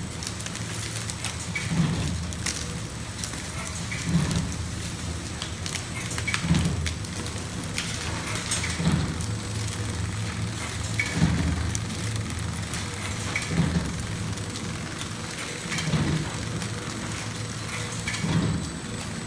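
Horizontal flow-wrapping machine running: a steady low hum under dense small clicks and crackles, with a louder surge that repeats about every two and a half seconds.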